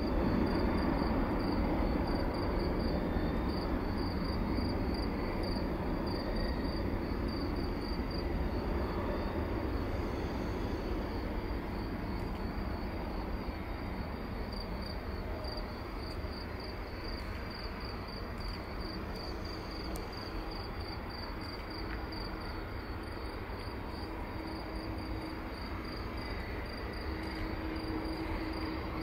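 Airbus A330-200 jet engines running at taxi power, a steady rumble that eases off slowly. Insects in the grass chirp in a rapid, even pulse over it.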